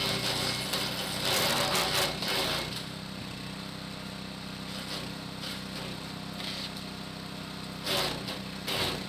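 Hecht 6208 garden branch shredder running with a steady hum, breaking into loud crackling bursts as branches are chopped during the first few seconds and again near the end.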